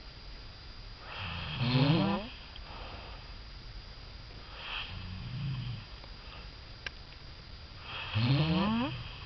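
A man snoring in his sleep: two loud snores, about a second in and near the end, each rising in pitch, with a quieter, lower breath between them.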